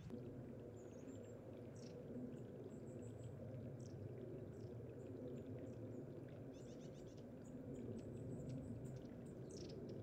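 Low steady trickle of water over rocks, with many short, thin, high calls of long-tailed tits scattered through it, some as quick downward notes, coming more often in the second half.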